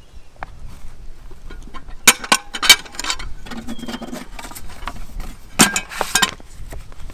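Metal letterbox door being opened and rattled as mail is taken out: sharp metallic clanks in two clusters, about two seconds in and again near six seconds.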